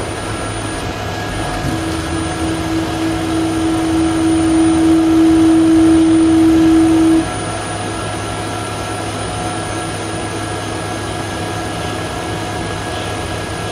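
Axis stepper motors of a TM20LV benchtop CNC mill whining steadily as the machine drives its axes home. A louder steady whine comes in about two seconds in and cuts off suddenly around seven seconds in, leaving a fainter steady motor hum.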